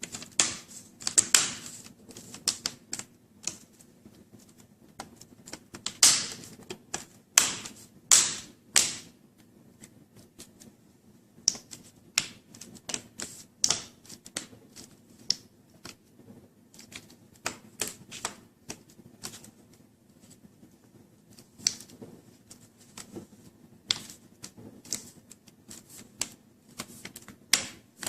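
Plastic front screen bezel of an Acer Aspire V5-571 laptop being snapped back onto the display lid: a long, irregular run of sharp plastic clicks as its clips catch, some much louder than others.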